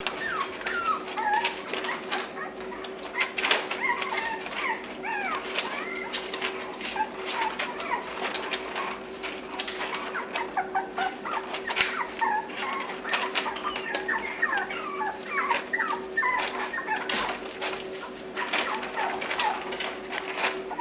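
Six-week-old Cavalier King Charles Spaniel puppies giving many short, high, overlapping whines and squeaks, with scattered clicks and scratches.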